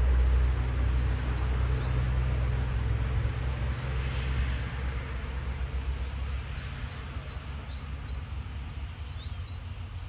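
Outdoor ambience: a low rumble that fades away after about six and a half seconds, over a soft background hiss, with small birds chirping a few times.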